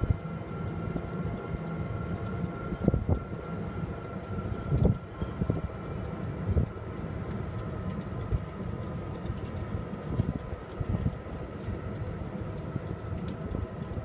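Steady engine and road noise of a moving vehicle, heard from on board, with a steady whine over the low rumble. A few short low thumps stand out, about three and five seconds in.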